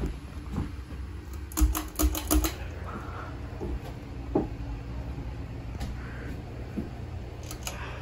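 Harbor Breeze Cedar Shoals ceiling fan running with a steady low hum. A quick run of sharp clicks comes about two seconds in, and a few single ticks follow later.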